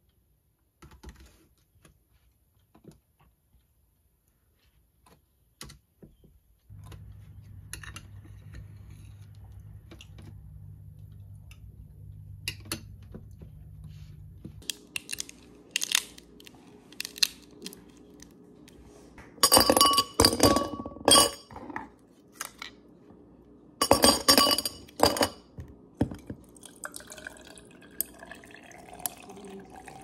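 Ice cubes dropped into a tall glass in two loud bursts of clinking against the glass, then a drink poured over the ice, with a pitch that rises as the glass fills.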